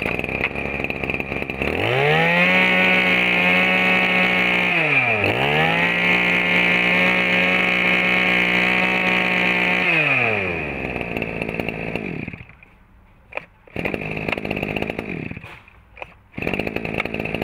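Shindaiwa 22cc two-stroke brush cutter engine revved to high throttle about two seconds in and held there. It is let off briefly at about five seconds and revved up again, then drops back to idle after about ten seconds, followed by a few short uneven bursts near the end.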